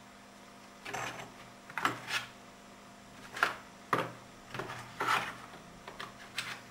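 Small stone and shard-like pieces being picked up and set down in a foam-lined aluminium case: about ten irregular light knocks and clicks, starting about a second in, over a faint steady hum.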